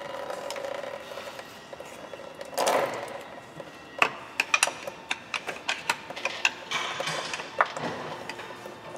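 A screwdriver clicking and scraping against the metal clamp and fitting of a coolant hose as it is prised loose, with a brief louder scrape just before 3 seconds in and a quick run of sharp clicks after that.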